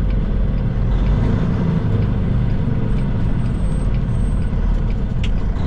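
Semi truck's diesel engine running steadily at low speed as the truck turns, heard from inside the cab as a low rumble. A single sharp click sounds about five seconds in.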